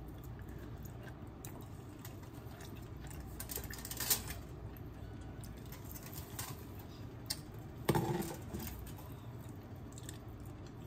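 Hands pulling and tearing meat off a whole roasted chicken on a foil-lined pan: soft rustling and small crackles of the foil and skin, with a brief knock about eight seconds in.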